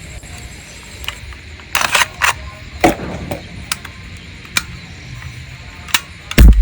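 C10A all-metal 1911-style air BB pistol firing once near the end, a loud sharp pop with a low thump. It is preceded by a scatter of lighter clicks and knocks.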